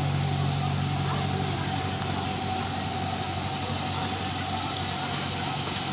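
A steady engine hum: a low, even drone with a faint higher whine above it.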